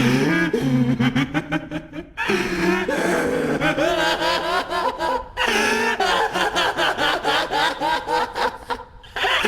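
A man's voice laughing hard in long, breathy runs whose pitch swoops up and down, with short breaks for breath about two seconds in, a little past halfway and near the end: the anime character Light Yagami's (Kira's) laugh.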